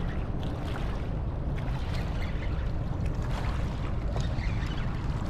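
Steady rush of river water, with a low rumble of wind buffeting the microphone.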